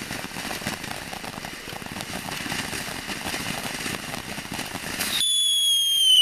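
Ground fountain firework spraying sparks with a steady crackling hiss. About five seconds in, it changes to a loud shrill whistle that slowly falls in pitch.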